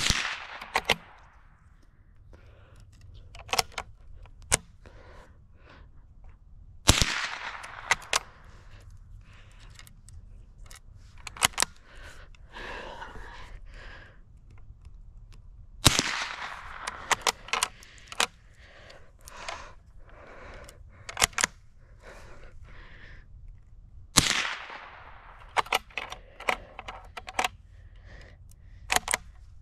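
Four shots from a .22 LR Gustloff Werke KKW bolt-action rifle, about seven to eight seconds apart, each with a short echo. Between the shots come quick metallic clicks and clacks of the bolt being worked to chamber the next round.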